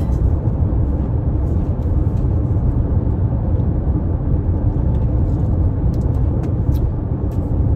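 A car driving: steady low road and engine rumble with no change in pace.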